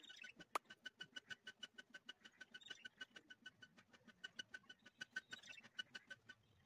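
Oil pastel stick scribbling on paper in quick back-and-forth strokes: a faint, even run of squeaky scratches, about seven a second, with one sharper click about half a second in. The strokes stop near the end.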